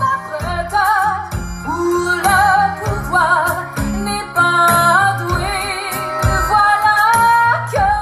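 A pop song played back loud through a TPA Shark TP 450 line array with P181SP active 18-inch subwoofers, heard in the room: a woman's high sung melody with vibrato over deep, pulsing bass notes.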